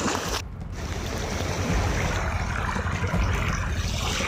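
Steady rushing of floodwater flowing across a road, after a brief drop-out about half a second in.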